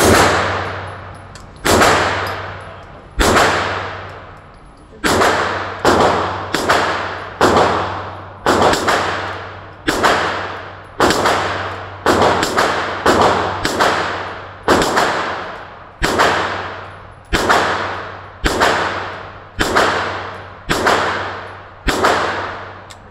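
A 9mm AR-9 pistol with a muzzle brake firing a long string of single shots, about one to two a second. Each crack rings out with a long echoing decay in an indoor range, over a steady low hum.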